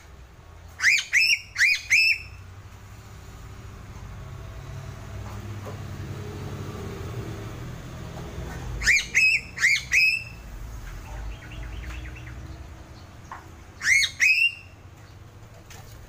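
Piping crow (Sulawesi crow) calling: short, high, hooked notes in quick groups, three notes about a second in, three more just past the middle and two near the end, over a low steady background rumble.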